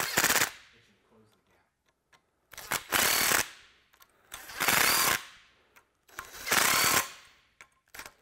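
Cordless DeWalt impact driver tightening quarter-20 serrated flange lock nuts onto carriage bolts, in four short bursts: one right at the start, then three more about every two seconds.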